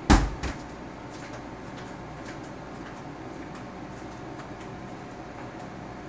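Dr.coffee F11 super-automatic coffee machine partway through brewing an espresso: a steady low hum with faint ticks, broken near the start by a loud knock and a smaller one half a second later.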